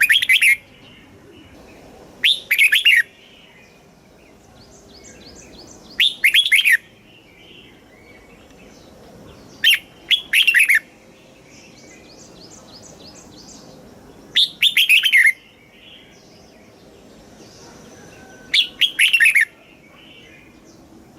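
Red-whiskered bulbul singing: six short, loud phrases of clear whistled notes, one about every four seconds, with soft high twittering in between.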